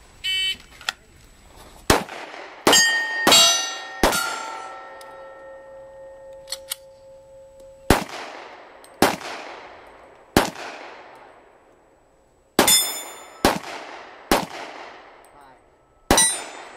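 An electronic shot-timer beep, then about eleven handgun shots at an uneven pace over some fifteen seconds. Several shots are followed by the clear, sustained ring of a steel plate being hit, the longest ringing for about three seconds.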